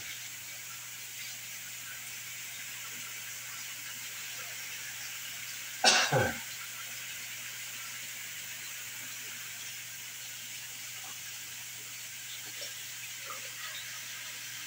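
Kitchen tap running steadily into the sink while hands are washed; about six seconds in, one short, loud cough.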